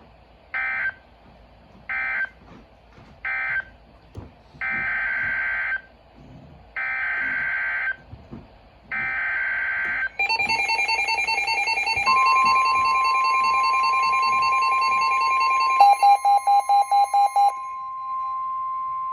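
Emergency Alert System tones on NOAA Weather Radio: three short bursts of SAME data squawk, the end-of-message code closing one warning, then three longer SAME header bursts announcing the next warning. These are followed by the long steady 1050 Hz warning alarm tone, with other beeping alert tones over it and a quick run of about six beeps near the end.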